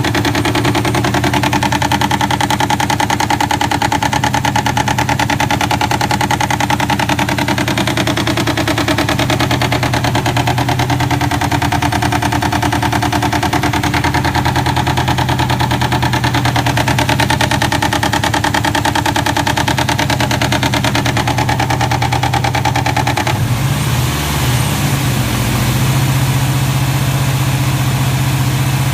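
Subaru WRX turbocharged flat-four engine idling steadily with a fast, even pulsing, the knock that the owner is asking about. A little over two-thirds through, the engine note shifts and wavers briefly, then settles again.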